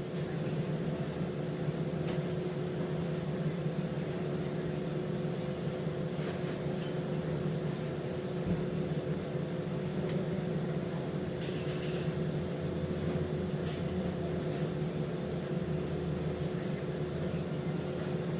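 Steady machine hum holding a few fixed tones, with a couple of faint clicks.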